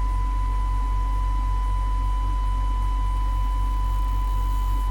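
Steady, unbroken audio test tone with a fainter tone an octave above it, over a loud mains hum and a pulsing low buzz, from a CB radio bench test while the AMC is adjusted.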